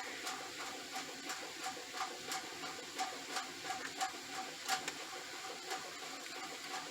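Faint, irregular small clicks and rattles of plastic parts being handled and fitted together as the face of a replacement extension-cord end is put back on.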